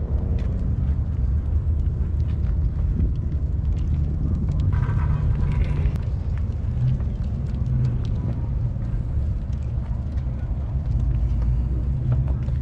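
Steady low outdoor rumble with no clear rhythm or pitch.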